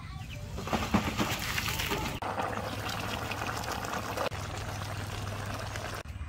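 Water poured from a metal pot, splashing down in a stream. After a sudden cut, a wok of duck stew simmers with a steady bubbling over a low hum.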